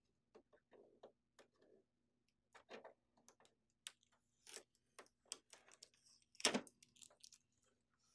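Sparse, faint clicks and taps of hands handling the plastic parts and packing tape of a laser printer, with one short, louder rustle about six and a half seconds in.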